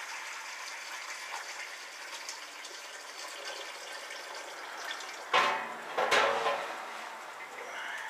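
Hot water running from the boil kettle's spigot into a small stainless pot, a steady splashing hiss. About five seconds in come two loud clanks, less than a second apart.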